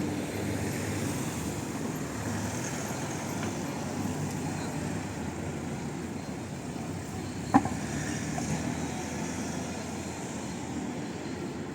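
Steady low engine drone, with a single sharp knock about seven and a half seconds in.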